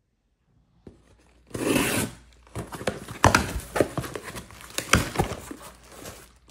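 Packaging being handled: a short tearing sound about a second and a half in, then crinkling with several sharp clicks and knocks.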